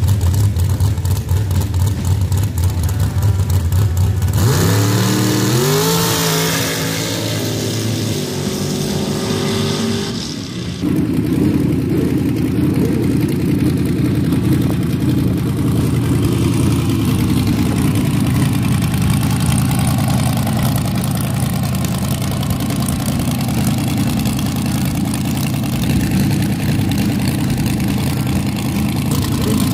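Sand dragsters' V8 engines running, low-pitched at idle; about four seconds in one revs up, its pitch climbing for a few seconds. After a cut about ten seconds in, another dragster's engine idles steadily, with a short rev near the end.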